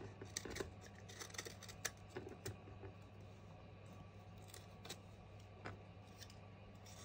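A small hand-held blade cutting through a thin wooden staircase embellishment, giving faint, irregular clicks and short scrapes as it bites into the wood.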